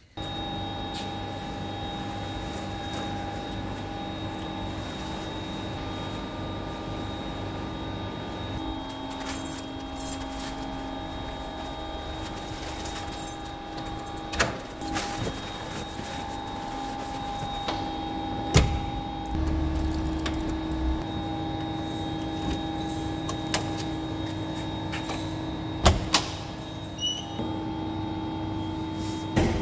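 Peugeot 204's engine running steadily, with a few sharp clicks and knocks.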